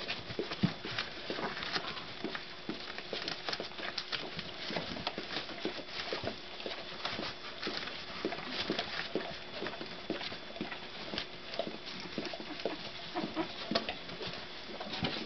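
Black Labrador mother licking and cleaning her puppies: a steady run of quick, irregular wet licks and smacks.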